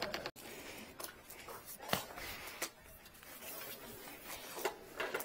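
Handling noise from a garden hose being worked with gloved hands: a few light clicks and knocks from its plastic tap coupling and the hose being moved, over low rustling.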